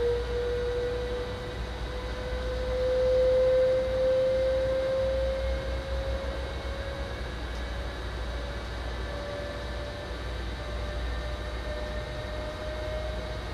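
Electric train's traction drive whining with a slowly rising pitch as the train accelerates away from the stop, over a steady low running rumble, heard from inside the driver's cab.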